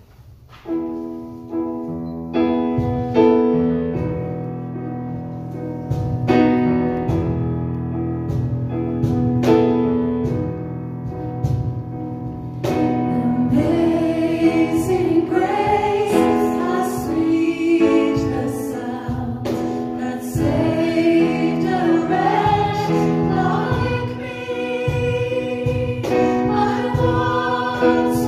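Electric keyboard playing an introduction of piano chords, then a man and two women singing a worship song over it from about halfway through.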